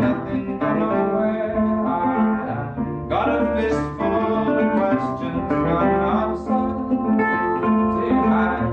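Resonator guitar strummed and picked in a steady rhythm, with a man singing over it.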